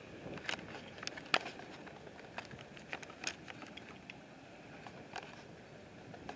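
Scattered raindrops ticking irregularly, several a second, as a thunderstorm arrives, over a steady hiss of wind.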